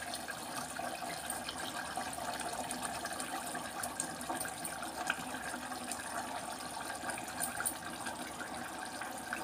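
Thick prawn curry simmering in a clay pot on the stove: a steady watery bubbling hiss with a few faint clicks.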